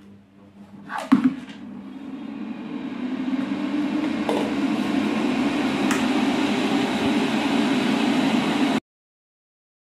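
Inline duct fan starting up after a knock about a second in: a rush of air with a low hum that builds over a couple of seconds to a steady, loud run, then cuts off suddenly near the end.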